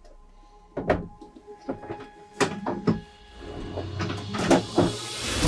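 Hard cases knocking and latches clicking on the floor of a pickup truck bed: a string of sharp knocks and clicks. Near the end a rising whoosh swells up.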